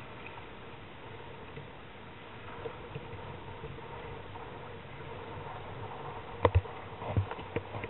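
Steady rush of wind and choppy water on a kayak-mounted camera's microphone in strong wind. Near the end, a handful of sharp knocks.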